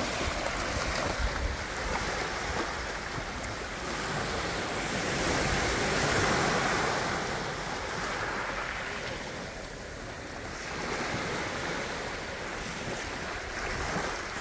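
Surf washing onto a beach, swelling about halfway through and then ebbing away, with wind buffeting the microphone.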